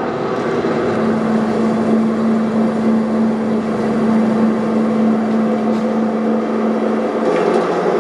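Fishing boat's engine running steadily, heard as a film soundtrack played through a hall's speakers; its hum drops slightly in pitch about seven seconds in.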